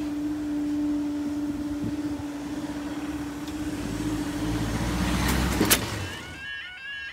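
Level crossing barrier mechanism humming steadily as the barriers rise, stopping with a clunk about six seconds in. Road vehicles start to move across the crossing, their engine rumble building near the end.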